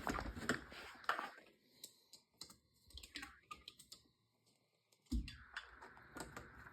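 Light clicks and taps from handling a hand-held electric saw, scattered through the first second, then a louder knock about five seconds in and a few faint clicks after it.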